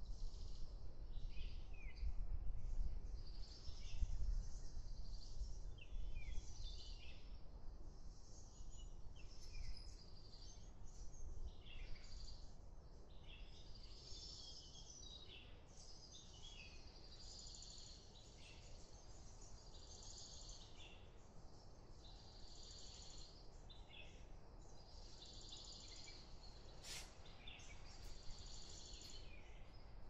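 Several birds chirping and calling in short, repeated notes, over a low rumble that fades after the first ten seconds or so; a single sharp click near the end.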